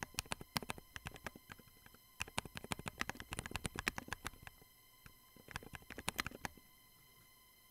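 Typing on a Trident40 40% keyboard with Durock JWK Semi Silent 62 g linear switches and Drop MT3 keycaps: runs of quick keystrokes with two short pauses, stopping about a second before the end. The switches click normally on the downstroke but are damped on the return.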